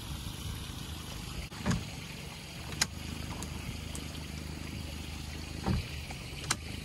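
Steady low rumble with a few short thumps and two sharp knocks as a long-handled landing net and line are worked from a boat to land a hooked catfish.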